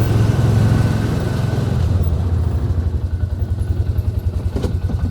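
A vehicle engine running steadily with a low, even pulsing thrum, and a short knock about four and a half seconds in.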